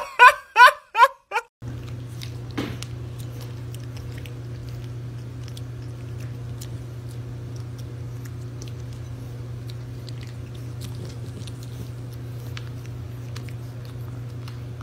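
Puppy chewing and crunching dry kibble from a glass bowl, with many scattered sharp clicks of kibble, over a steady low hum. It begins after a quick run of about six short pitched sounds in the first second and a half.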